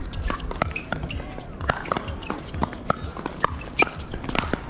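Pickleball paddles striking a plastic ball: many sharp pops coming at uneven intervals, several a second.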